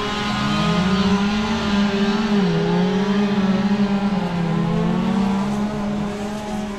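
Chainsaw running at high revs, its pitch sagging under load and recovering a few times, as when cutting into wood.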